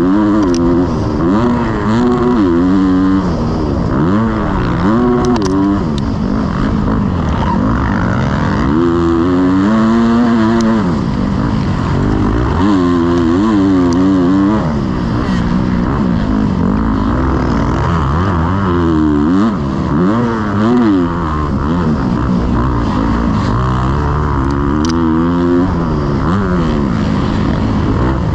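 Motocross bike engine revving hard and dropping back, its pitch climbing and falling every second or two as the throttle is opened and shut and the rider shifts gears around the track.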